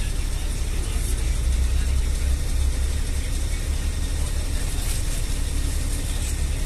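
Steady low rumble of a bus's engine and tyres on a rough, debris-strewn mountain road, heard inside the passenger cabin.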